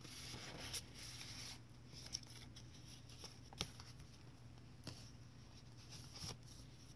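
Faint rustling and a few soft taps of thick paper pages being turned and handled in a handmade journal, with the rustle strongest in the first second and a half.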